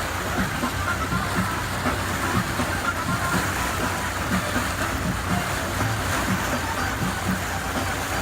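Tour boat's engine running steadily under way, a constant low hum mixed with the rush of water and wind.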